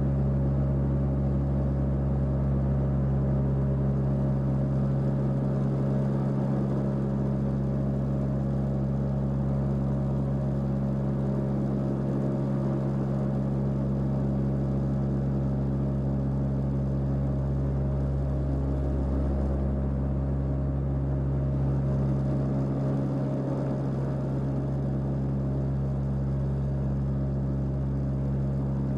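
Airplane in flight: a steady engine drone, a deep rumble under a constant low hum, with no change in pitch or level.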